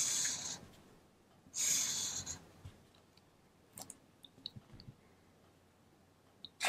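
Felt-tip marker drawn across paper in two quick strokes, each under a second, ruling lines under a sum; a few faint ticks follow.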